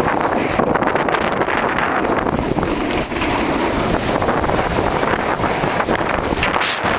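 Wind rushing over the camera microphone during a fast downhill ski run, loud and steady.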